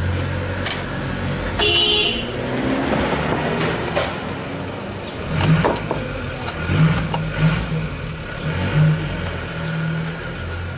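Workshop noise under a raised car: a few sharp metal clicks as a steel socket is fitted onto the lower engine-mount (torque rod) bolt, over a low engine hum that comes and goes. A short horn-like toot sounds about two seconds in.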